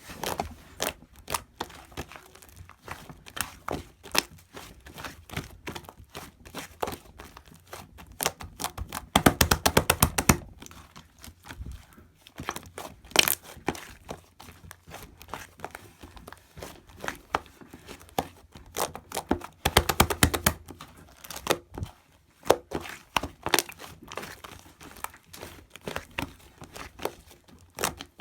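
Hands squishing and pressing shaving foam: a continuous run of crackling, crinkling pops and clicks, with denser, louder stretches about a third and two thirds of the way through.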